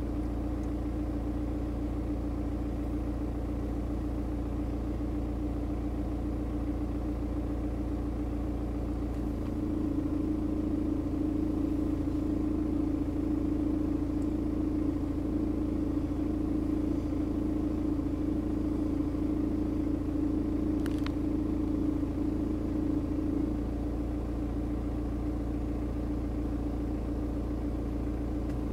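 BMW 118d's N47 four-cylinder turbodiesel idling warm with a light sawing, vibrating grind. About 9 seconds in the revs are raised slightly and the sound gets a little louder and changes character, as the grind goes away; about 23 seconds in it drops back to idle and the grind returns.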